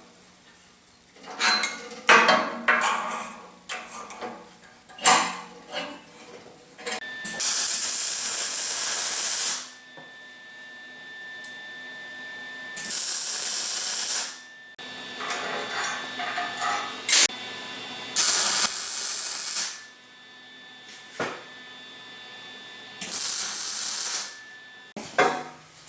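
MIG wire welder laying short welds on steel frame parts: four bursts of steady welding crackle, each a couple of seconds long, with clanks and knocks of metal being handled in between.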